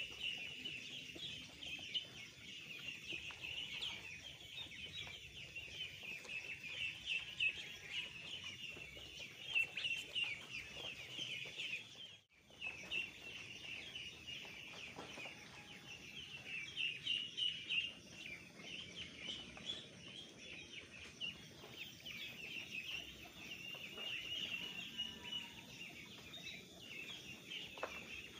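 A flock of two-week-old ducklings peeping continuously, a dense chorus of short high chirps, with a brief break about twelve seconds in.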